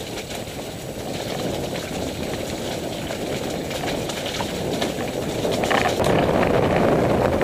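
Mountain bike rolling down a wet, rocky track: tyres crunching over stones and the bike rattling, under a rushing noise that grows and gets louder about six seconds in, with a few sharp knocks.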